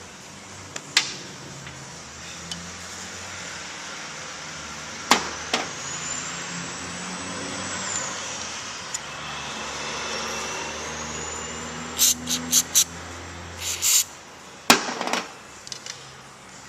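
Sharp clicks and knocks of hand work on a car seat, a quick run of them near the end, over a low steady hum and a faint high whine that rises twice.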